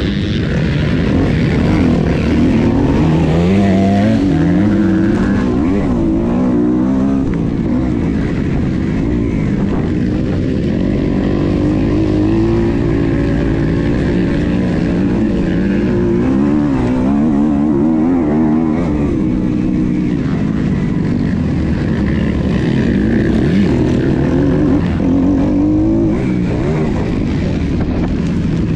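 Motocross bike engine heard from an onboard camera, revving up and down over and over as the rider accelerates, shifts and backs off through the corners.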